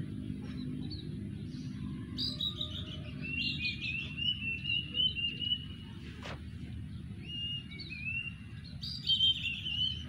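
Plaintive cuckoo calling with shrill runs of whistled notes that step down in pitch. The first run starts about two seconds in and lasts about three seconds, a shorter one follows around seven seconds, and another comes near the end. A single click sounds about six seconds in, over a steady low background rumble.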